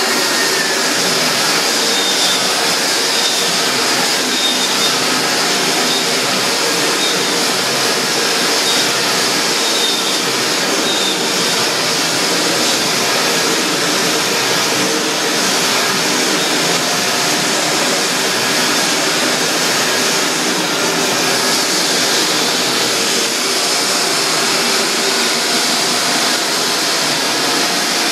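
Hardwood floor edging sander running steadily, its spinning disc grinding the old finish off the boards along the baseboard, a loud even motor and sanding noise.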